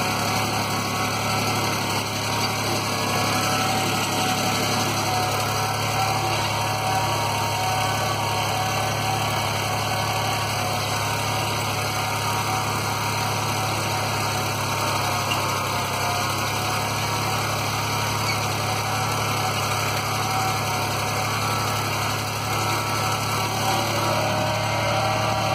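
Ford 3500 tractor's three-cylinder engine running steadily.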